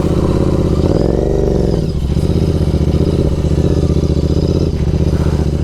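Motorcycle engine running through a loud exhaust, its pitch rising and falling once about a second in, then holding steady.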